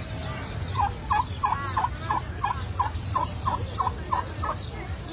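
Domestic turkey calling: a run of about a dozen short, evenly spaced yelping notes, some three a second, starting about a second in and stopping near the end.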